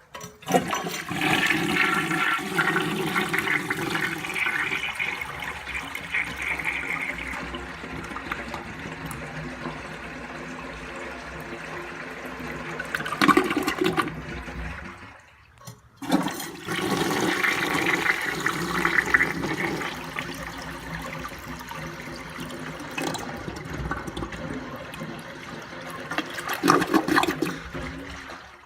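A 1960 Standard Cadet toilet flushing twice in a row. Each flush starts suddenly with a rush of water into the bowl, settles to a steady flow, then swells into a louder gurgle near its end before cutting off; the second flush follows about a second after the first.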